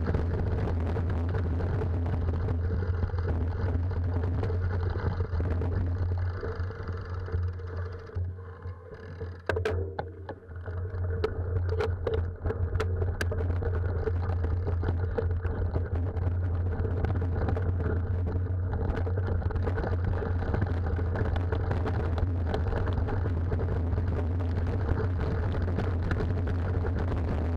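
Steady rumble and rattle of a mountain bike riding over a rough dirt and rock trail, picked up by a camera mounted on the rider or bike. It dips briefly about a third of the way in, with a few sharp knocks.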